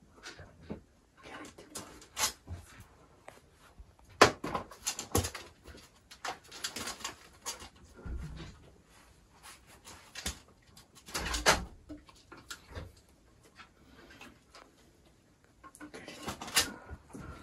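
Irregular taps, knocks and scrapes of a puppy's paws and claws on a plastic folding step stool and a wooden box as it steps on and off, with a few sharper knocks.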